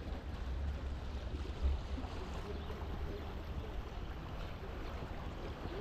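Steady hiss of falling rain, with wind rumbling on the microphone underneath and one brief low bump about a second and a half in.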